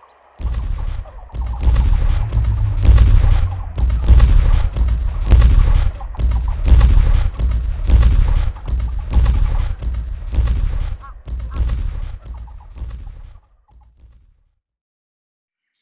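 A rapid run of loud, heavy booms, about two a second, like cannon fire or explosions in a sound-effects soundtrack, stopping suddenly about thirteen seconds in.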